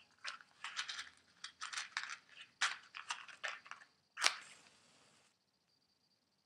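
A match being struck: a run of short scrapes and rustles, then about four seconds in one loud strike as it catches, with a flaring hiss that dies away about a second later.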